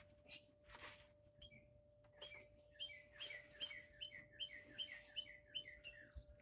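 A songbird singing faintly: a quick run of about a dozen short, falling chirps, some three a second, starting about two seconds in.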